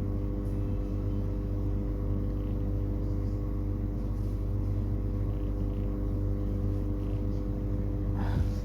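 Steady machine hum: a low drone with several steady pitched tones that holds at an even level without change.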